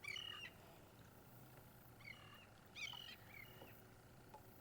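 A bird calling faintly over quiet outdoor ambience: a few short, quick notes, one at the start and a small cluster about two to three seconds in.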